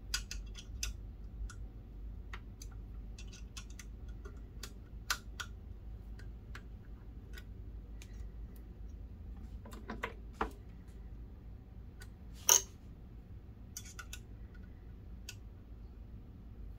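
Scattered small clicks and ticks of hands handling hydraulic hoses and fittings on a plastic model excavator, with one louder click about three-quarters of the way through.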